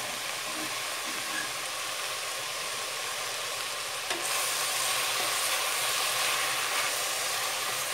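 Chopped spinach sizzling as it wilts in a steel saucepan with a little olive oil, stirred with a wooden spoon; the hiss grows louder about four seconds in.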